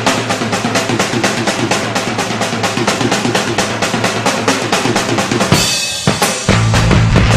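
Rock song intro on a drum kit: fast, even snare and bass-drum hits, a cymbal crash a little past five seconds in, then the bass and the rest of the band come in loudly about a second later.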